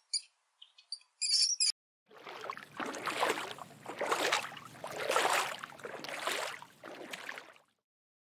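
A few short, high-pitched squeaks in the first second and a half. Then water sloshing in surges that swell and fade about once a second, stopping shortly before the end.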